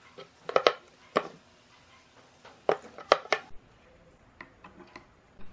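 Metal stepper motors handled and set down on a wooden tabletop: sharp knocks and clacks in two clusters, about half a second in and again near three seconds, with a few lighter ticks after.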